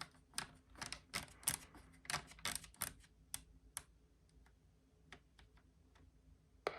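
Computer keyboard typing: quick irregular key clicks for about three seconds, then a few scattered clicks and one sharper click near the end.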